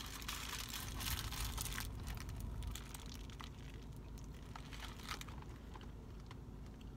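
Paper burger wrapper crinkling in the hand for about two seconds, then fainter chewing with scattered small mouth clicks.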